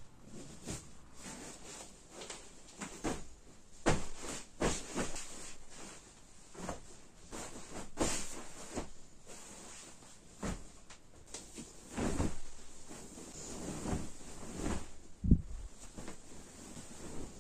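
Bedding rustling and swishing as a bed is made by hand: a cotton fitted sheet smoothed down, pillows set in place, and a duvet lifted and spread out. Irregular rustles with soft thumps, the sharpest thump near the end.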